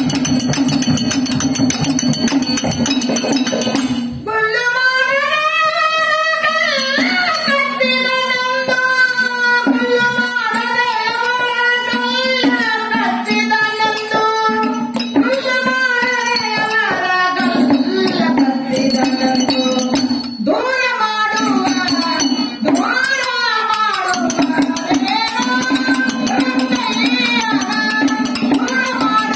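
Bhajan performance: a harmonium holds a steady note while small hand cymbals jingle in rhythm, and about four seconds in a woman's voice enters, singing the devotional melody in long, gliding notes.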